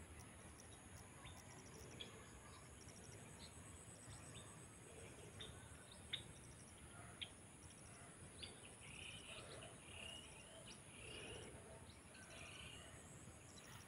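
Near silence of open farmland, with faint scattered short bird chirps that come more thickly in the second half.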